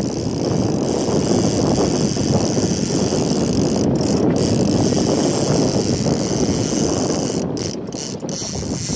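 Conventional saltwater fishing reel ratcheting rapidly and continuously, its clicker buzzing as line pays out from the spool under the angler's thumb.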